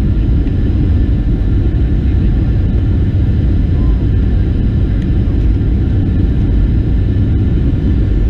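Steady low rumble of a Boeing 737-700's cabin in flight: airflow over the fuselage and the CFM56-7B engines, heard from a front-row window seat during the descent.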